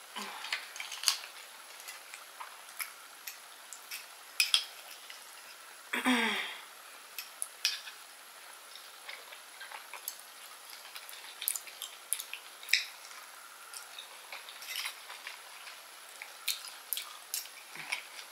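Small metal fork clicking and scraping on grilled oyster shells, with soft mouth and eating sounds between the clicks. One louder, longer mouth sound with a falling pitch comes about six seconds in.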